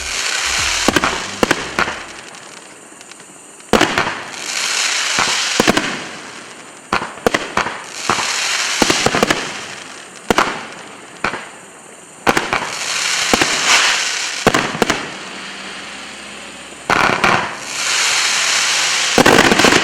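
Kush Case 48-shot shell cake finale set firing 2-inch canister shells: many sharp bangs of shell breaks in quick runs, with stretches of hissing between them.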